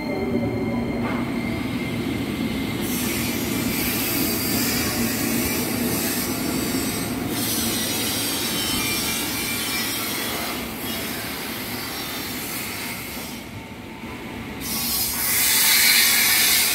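Electric commuter train (KRL) running along the platform as it pulls out: steady wheel-on-rail noise with a faint steady whine. A louder rushing noise swells near the end.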